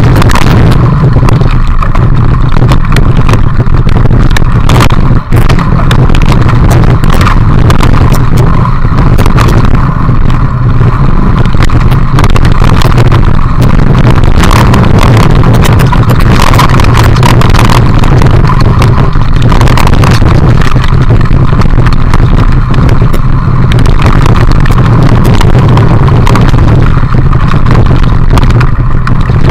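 Heavy wind buffeting on an action camera's microphone during a fast mountain-bike ride, with constant rattling and sharp clicks from the bike jolting over a rough dirt and gravel trail.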